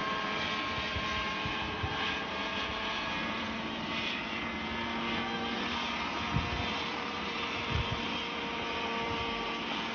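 Small single-seat homemade helicopter hovering low, its engine and rotor running steadily, with two brief low thumps past the middle.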